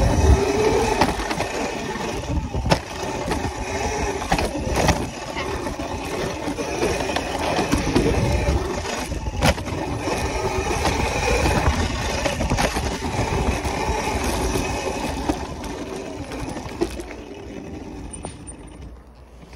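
Wind rushing over the microphone and the rumble of a small dirt bike being ridden over bumpy ground, with a few sharp knocks; it grows quieter near the end.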